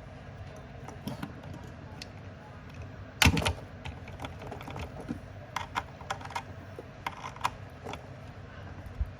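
Light clicks and knocks from hands handling a PlayStation 5 console while it is plugged in for testing after a power-supply replacement, with one louder clatter a little over three seconds in.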